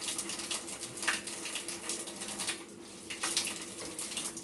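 Irregular rustling and light handling noises, with a faint steady hum underneath.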